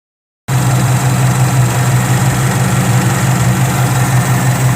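Ford Coyote 5.0 V8 idling steadily, starting about half a second in. It carries a slight noise that appeared after new oil pump gears were fitted, which the owner hopes is only the oil pump gear noise such gears are known for, getting a little louder when warm.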